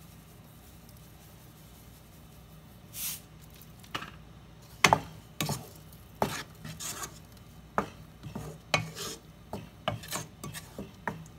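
Wooden spatula stirring thick tomato masala in a pot, with irregular scrapes and knocks against the pot starting about four seconds in; a brief hiss comes about three seconds in.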